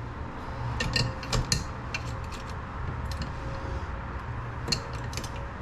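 Scattered light metallic clinks and taps from handling metal hardware and tools, about a dozen irregular strikes, over a steady low hum.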